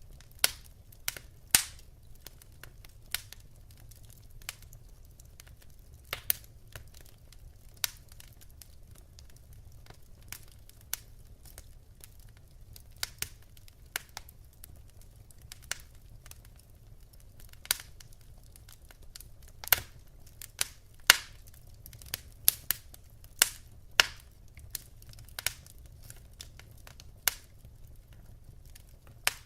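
Wood fire in a fireplace crackling, with irregular sharp pops from the burning logs, a few of them louder, over a faint low rumble.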